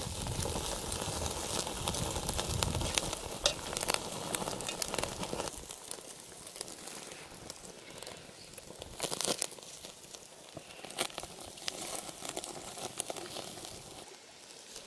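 Small wood fire crackling with sharp pops under meat skewers that sizzle on a wire grate. Louder for the first six seconds or so, then quieter.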